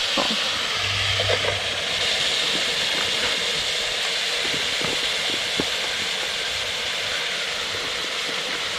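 Chunks of beef shank sizzling in hot oil with onion and urucum in a pot on a wood stove as they start to brown: a steady hiss, with a few faint taps as the pieces are moved.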